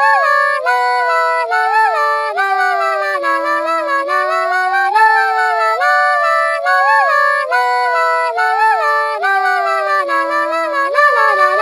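A smartphone alarm ringtone playing a loud melody: held notes that step from pitch to pitch over a sustained chord, with quick little slides up and back down.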